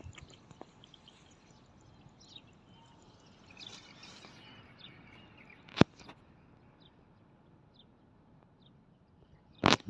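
Quiet outdoor ambience with faint, scattered bird chirps. A sharp knock comes about six seconds in, and another sharp knock near the end.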